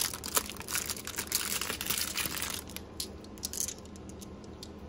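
Thin clear plastic bag crinkling as it is pulled open and peeled off a handful of small tumbled stones. The crinkling is busy for the first two and a half seconds, then thins to a few scattered rustles.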